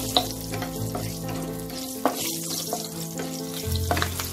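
Cumin seeds, whole spices and green chillies sizzling in hot mustard oil in a nonstick pan, stirred with a plastic spatula that knocks sharply against the pan three times.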